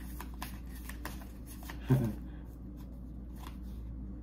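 Oracle cards shuffled by hand: a quick run of soft papery clicks over the first two seconds, then a few fainter card clicks. A brief vocal sound about two seconds in is the loudest moment.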